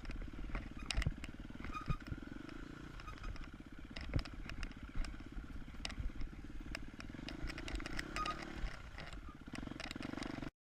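KTM 250 EXC-F single-cylinder four-stroke enduro engine running, its note rising and falling with the throttle, with scattered knocks and clatter. The sound cuts off abruptly about ten and a half seconds in.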